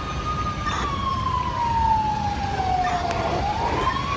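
Fire engine siren wailing: one slow tone falls in pitch for about three seconds, then starts rising again near the end, over a steady low rumble.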